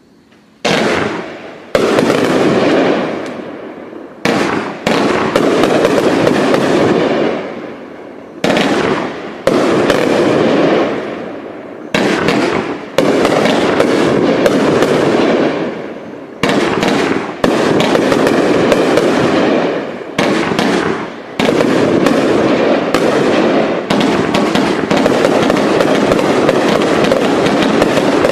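A 500-gram consumer firework cake firing a string of shots, a sudden bang every second or two, each trailing off as it fades. From about three quarters of the way in the shots come faster and run together into a continuous barrage.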